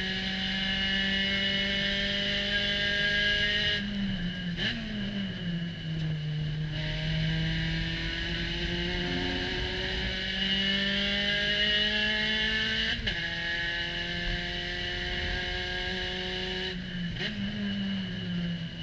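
Spec Racer Ford's four-cylinder engine at racing speed, heard from the open cockpit. It pulls steadily up through the revs. About four seconds in it drops with throttle-blipped downshifts under braking, and it climbs again until an upshift about two-thirds of the way through. Near the end it blips through another downshift.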